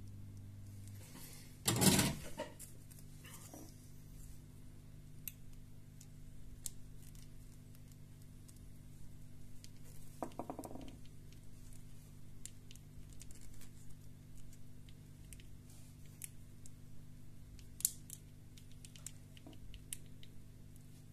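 Heat gun blowing and switching off about a second in, then a single loud clatter as it is put down. After that come faint clicks and rustles of fingers pressing a small plastic headset part together to seat its double-sided adhesive tape, over a steady low hum.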